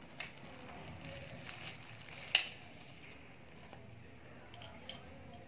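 Faint rustling and small clicks of hands unwrapping a pair of sunglasses from a plastic sleeve, with one sharper click about two and a half seconds in.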